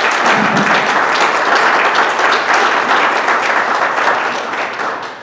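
A group of people clapping their hands in applause, steady and loud, dying away near the end.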